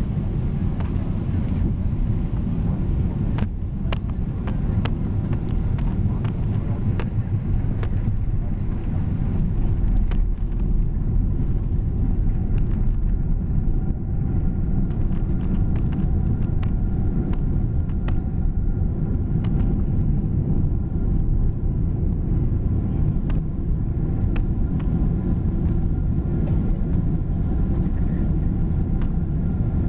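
Jet airliner cabin noise during landing: a steady low rumble of engines and airflow with many sharp rattling clicks as the plane touches down and rolls along the runway, growing slightly louder about ten seconds in.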